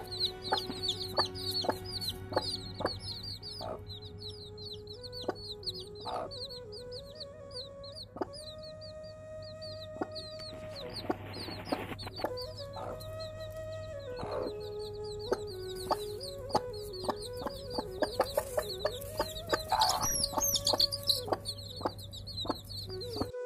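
A brood of chicks peeping continuously: a dense run of short, high chirps, several a second. A hen clucks among them in short low calls.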